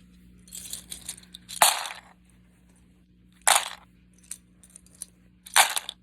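Loose plastic keycaps being dropped by the handful into a bowl, clattering together. A light clatter comes about a second in, then three loud clattering pours about two seconds apart, with a few stray keycaps clicking in between.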